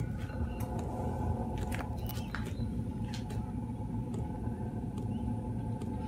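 12 V diesel air heater in its start-up sequence, before combustion has caught: the blower fan hums steadily while the fuel dosing pump ticks sharply about once a second.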